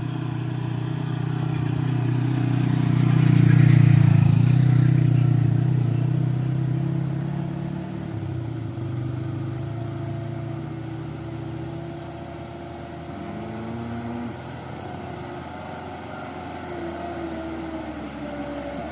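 Mitsubishi Canter diesel truck engine working hard under heavy load on a slippery uphill attempt. It swells to its loudest about four seconds in, then eases off after about eight seconds to a lower, uneven running. The truck is failing to make the climb.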